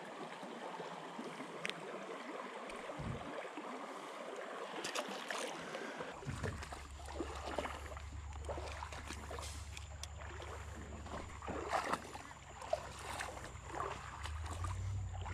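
Shallow creek water running over rocks, with small scattered knocks and rustles of wading and handling. About six seconds in, a low rumble on the microphone sets in and stays.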